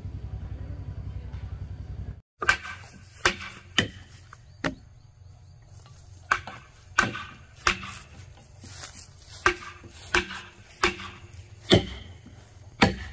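Wood being chopped with a blade: about a dozen sharp strikes at an uneven pace. Before them, a low steady hum cuts off abruptly about two seconds in.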